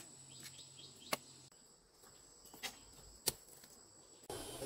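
Four sharp chopping knocks, irregularly spaced, over a steady high insect trill.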